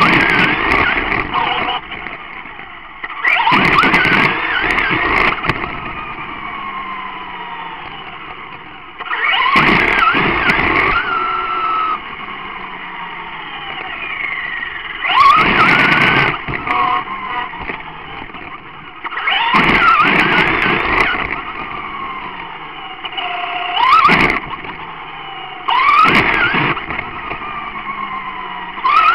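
Brushless electric motor of a Traxxas Rustler RC truck on a Castle Sidewinder speed controller. It whines up in pitch in about eight short bursts of throttle, each with a rush of tyre and road noise, and the whine falls away as the truck coasts between bursts.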